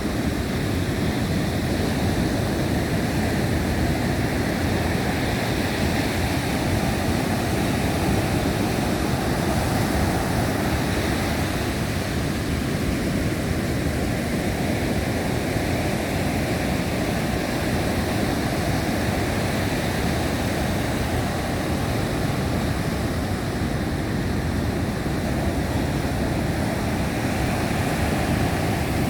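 Big Atlantic surf breaking in high wind: a steady, dense rush of water and wind with no separate crashes standing out.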